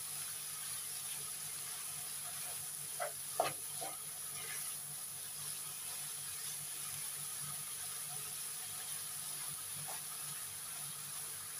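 Nam prik ong, a minced meat and tomato chili paste, sizzling steadily in a frying pan as it is stirred, with a few short knocks of the spatula about three to four seconds in.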